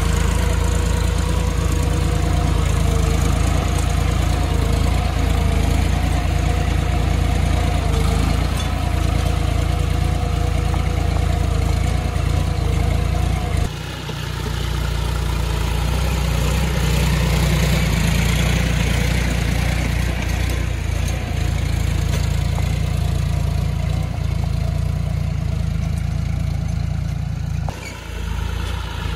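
John Deere tractor's diesel engine running steadily under load while pulling a plough through the soil. The sound breaks off and picks up again abruptly about halfway through and again near the end.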